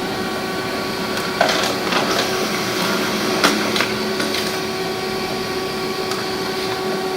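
HP LaserJet MFP M236sdw laser printer running an ID card copy job: a steady mechanical hum with several sharp clicks.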